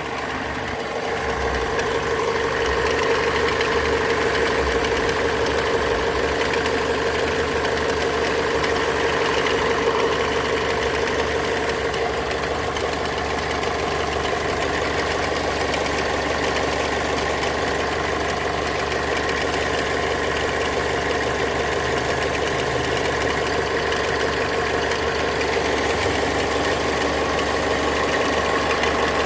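Mazda 6 2.2 MZR-CD diesel engine idling, with a random clicking like an electromagnetic relay over the running engine. The owner suspects a loose alternator freewheel pulley.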